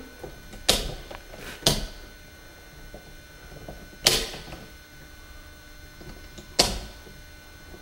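Four sharp knocks, unevenly spaced, each ringing on briefly in a small room.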